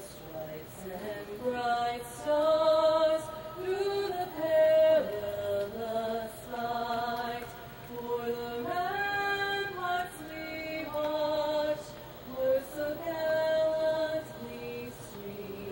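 The national anthem sung unaccompanied, a melody of long held notes.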